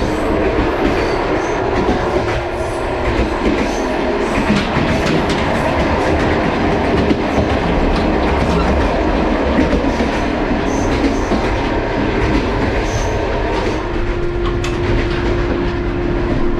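Passenger train running, heard from inside a sleeper carriage: a steady loud rumble with wheels clattering over the rail joints. A steady hum joins near the end.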